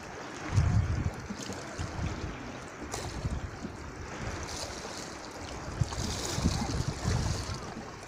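Small sea waves lapping and washing over shallow rocks at the water's edge, with wind buffeting the microphone in low gusts about half a second in and again near the end.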